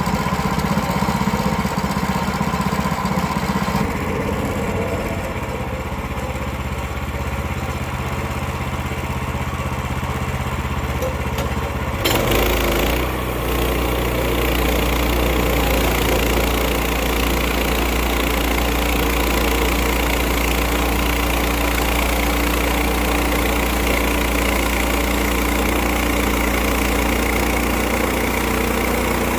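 Gasoline engine of a Woodland Mills portable bandsaw sawmill running steadily. Its sound changes abruptly about twelve seconds in and then settles into a steady low hum.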